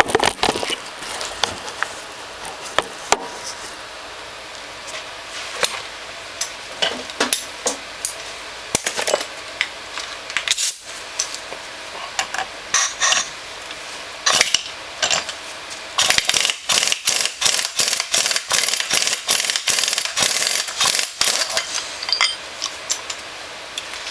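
Metal hand tools clinking and knocking against steel parts and a vise, in scattered single clicks at first and then a rapid run of clicks for several seconds near the end.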